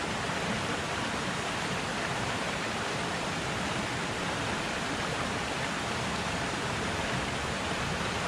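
Shallow rocky mountain stream running over stones, a steady even rush of water.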